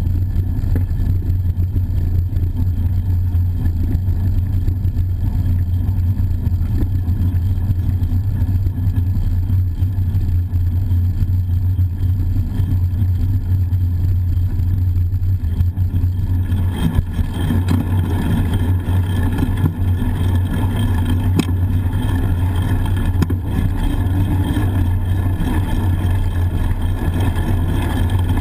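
Steady low rumble of wind and road vibration on a bike-mounted GoPro HERO-960 while riding. The rushing grows louder and brighter a little past halfway through.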